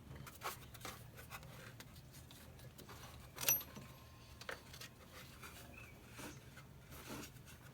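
Faint scattered clicks and clinks of metal hand tools being handled, with one sharper click about three and a half seconds in, over a low steady hum.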